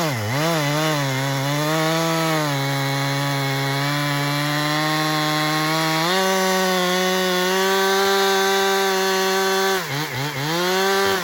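Two-stroke chainsaw cutting through very hard, dead gum wood. The engine speed drops and holds lower for several seconds as it pulls down in the cut, then picks back up about six seconds in. Near the end there are a few quick throttle blips.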